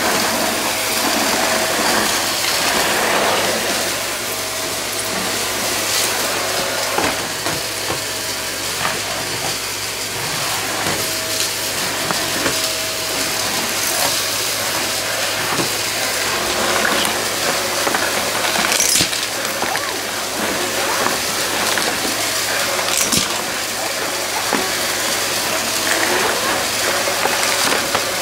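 Stick vacuum running steadily with a rushing airflow noise, sucking small debris off a hardwood floor, the bits crackling and clicking as they rattle up the wand.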